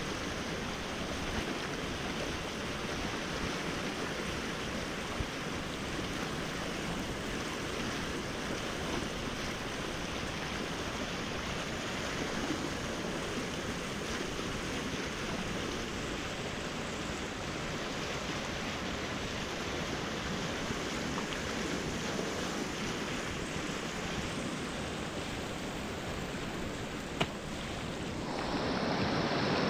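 Rushing river water and water splashing off the bow of a whitewater kayak as it runs downstream, growing louder near the end as the boat enters rapids.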